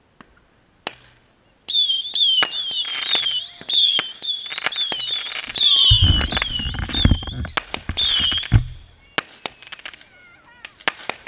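Ground-launched firework going off: a rapid string of shrill whistles that swoop in pitch, mixed with sharp cracks, for about seven seconds. About six seconds in, a heavy low rush joins for two to three seconds, and it tails off into scattered crackling pops.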